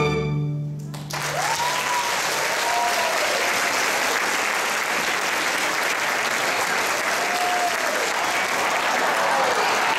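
A string orchestra's final chord, held for about a second and cut off, then the audience breaking into steady applause with a few cheering shouts.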